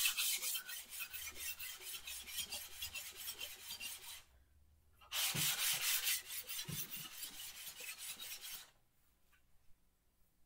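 Cast-iron sole of an Ohio No. 102 block plane lapped on 180-grit wet/dry sandpaper: quick back-and-forth rasping strokes. There is a one-second pause about four seconds in, and the strokes stop about a second and a half before the end.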